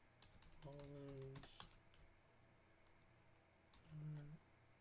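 A few faint, scattered clicks of a computer keyboard, struck now and then rather than in a steady run of typing.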